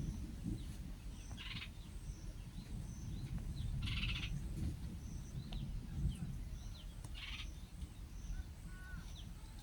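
Wild birds calling: a buzzy, trilled call repeated three times a few seconds apart, short falling chirps, and a faint high note repeating at an even pace, over a steady low rumble.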